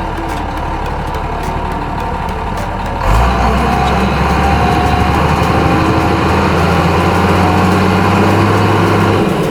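Heavy truck engine running steadily, growing louder about three seconds in and staying at that level.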